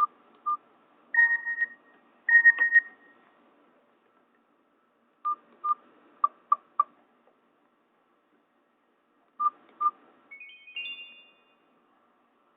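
Short electronic beeps from a Nokia 216 mobile phone in scattered groups: two quick beeps, two longer two-note tones, a cluster of five quick beeps, then two more beeps and a quick rising run of higher notes near the end.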